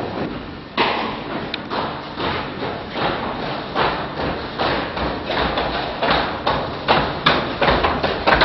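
A regular run of thuds, about two to three a second, with the loudest strokes near the end.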